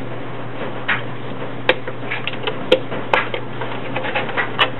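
Hobby knife cutting into the thin plastic of a stormtrooper helmet's mouth section: irregular sharp clicks and snaps as the blade bites and breaks through the plastic, along with the helmet shell being handled.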